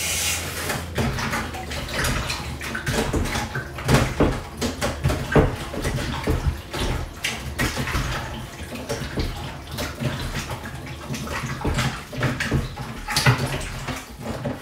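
Raw chicken pieces being washed by hand in a plastic colander in a stainless steel sink: tap water running and splashing, strongest at the start, with repeated short knocks and wet handling sounds.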